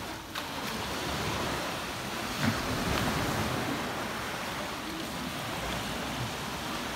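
Steady wash of sea waves on the shore, with one short thump about two and a half seconds in.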